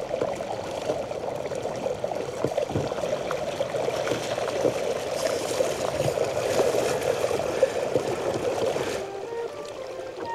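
Flash-flood water rushing steadily down a dry desert wadi, a muddy, foam-topped flow. Near the end the water sound drops away and a few notes of flute music come in.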